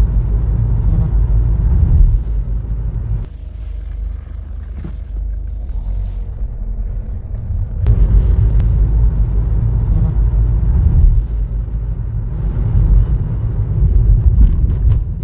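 Road and engine noise inside a moving Citroën Berlingo van: a steady low rumble that drops quieter for a few seconds from about three seconds in, then comes back up.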